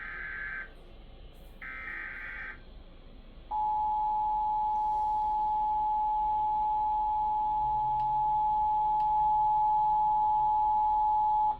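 Emergency Alert System activation. Two harsh, warbling bursts of SAME digital header data, each about a second long, are followed after a short gap by the EAS attention signal. That signal is a steady, loud two-tone beep held for about eight seconds, cutting off at the end. It announces a severe thunderstorm warning.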